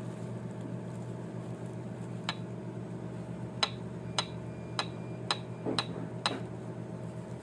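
Light metallic clinks, about seven spread over a few seconds, each with a brief ring, as the metal parts of a Peugeot 307 oil pump (gear and housing) are handled and knocked together during teardown. A steady low hum runs underneath.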